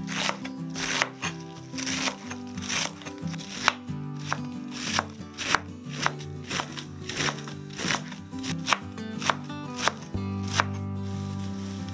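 Knife chopping on a cutting board in irregular strokes, about two a second, over background music; the chopping stops about ten seconds in and the music carries on alone.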